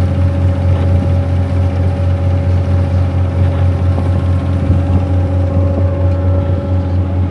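A river cruise boat's engine running steadily at cruising speed, heard on board: a loud low hum with a steady higher-pitched whine above it.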